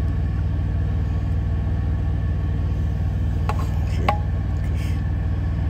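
Semi-truck diesel engine idling steadily with a low, evenly pulsing rumble, heard from inside the cab. Two short clinks of a utensil against the frying pan come about three and a half and four seconds in.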